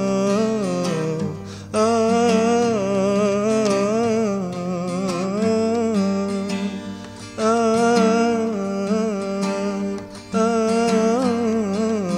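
A man singing a wordless melody in long phrases with a wavering, ornamented pitch, over a strummed acoustic guitar.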